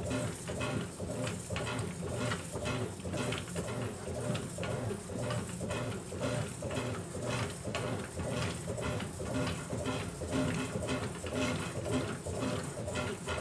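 Brastemp Ative BWG11 top-loading washing machine agitating a load of laundry: rhythmic back-and-forth agitator strokes and water sloshing, about two a second, over a low steady hum.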